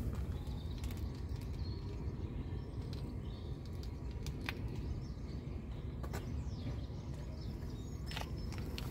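Outdoor ambience: a steady low rumble of wind on the microphone, with a few faint bird chirps and occasional light clicks.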